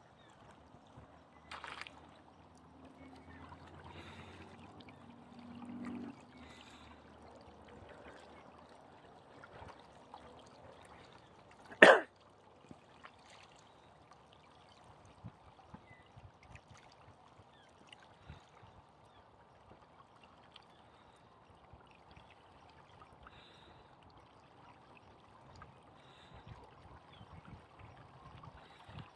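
Faint water lapping and trickling at the lake's edge. A low hum swells and fades between about two and six seconds in, and a single sharp click comes about twelve seconds in.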